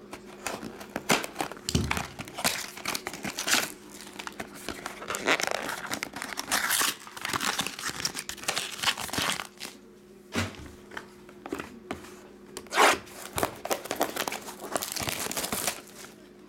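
Hands opening a cardboard hobby box and handling its Upper Deck SP Game Used hockey card packs: foil wrappers crinkling and cardboard tearing in irregular bursts, with sharp clicks, over a faint steady hum.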